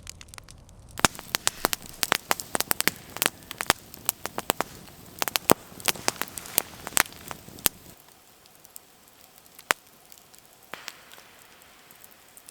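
Campfire crackling and popping: a quick run of sharp snaps for several seconds, thinning to a few scattered pops.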